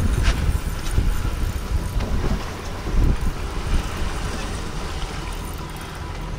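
Wind buffeting the microphone over a moving boat's engine rumble and water rushing past the hull. It eases a little after about two seconds.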